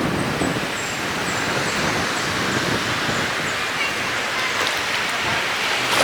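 Steady rushing noise of ocean surf and wind, with a few faint high chirps in the first couple of seconds.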